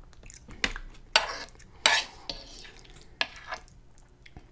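A metal fork scraping and clinking across a nonstick electric griddle plate as leftover noodles and meat sauce are gathered up. It comes as a series of short, sharp scrapes, the loudest in the first two seconds.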